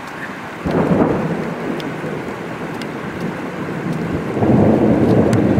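Thunder from a supercell: a rumble that starts suddenly about half a second in and fades, then a second rumble building near the end, over steady rain with scattered drops ticking.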